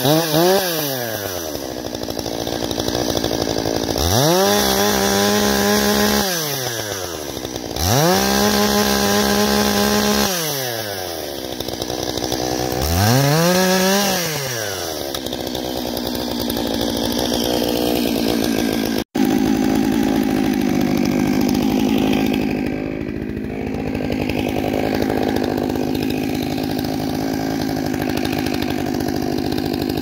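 Stihl two-stroke chainsaw revved four times, each burst rising, holding, then falling back toward idle. About two-thirds of the way in, after a cut, a big Stihl chainsaw (MS 661) runs steadily under load, ripping a log on a Granberg Alaskan chainsaw mill.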